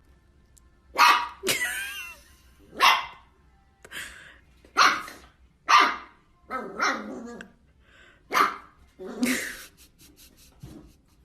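A dog barking, about ten sharp barks at uneven intervals, with a few light clicks near the end.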